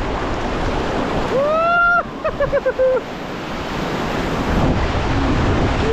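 Whitewater rapids rushing, with wind buffeting the microphone. About a second and a half in, a person lets out a long rising whoop that breaks into a quick run of short warbling notes.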